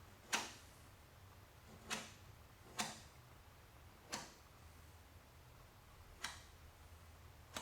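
Six sharp, isolated clicks at uneven intervals, roughly one every second or two, over faint room hum.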